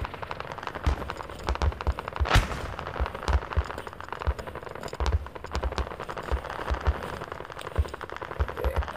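Airsoft gunfire, heard as rapid crackling clicks, with one sharper crack a little before the halfway point and irregular dull low knocks.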